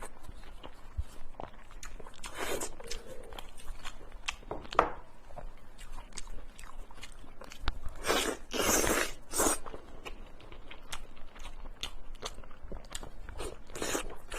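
Close-miked eating of pork belly: chewing and biting with many small wet clicks, and a few longer, louder bursts of crunching and smacking about two seconds in, around eight to nine seconds in, and near the end.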